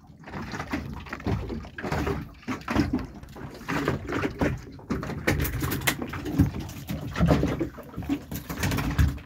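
A freshly hand-lined fish hauled aboard a small boat and flapping on the deck: quick irregular slaps and knocks, thickest in the second half, over a low rumble.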